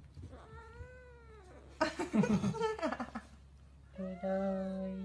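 Kitten meowing and crying several times: a faint mew that rises and falls in pitch just under a second in, a louder, rougher cry around two seconds in, and a steadier held cry near the end.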